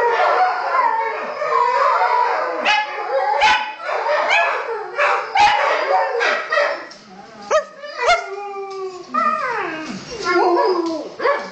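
Several dogs and wolf hybrids howling together, many voices overlapping. Sharp yips break in among the howls, and near the end single howls slide down in pitch and the chorus thins out.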